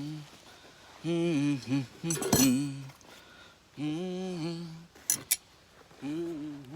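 A man humming a tune in short held phrases, with a loud metallic clank about two seconds in and two sharp metal clinks about five seconds in.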